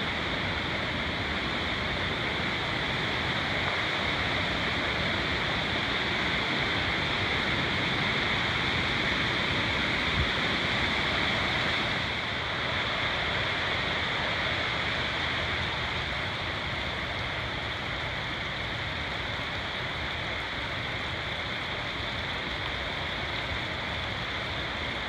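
Steady rush of a mountain creek tumbling over rocks and small cascades, a little quieter from about halfway through.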